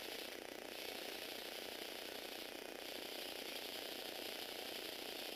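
Small electric motor driving a Lego Technic car's plastic gear train and drive chain, giving a steady, fine whirring rattle of gear teeth.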